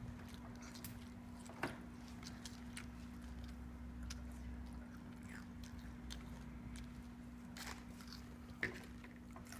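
A child chewing and biting food: faint, scattered crunchy clicks over a steady low hum.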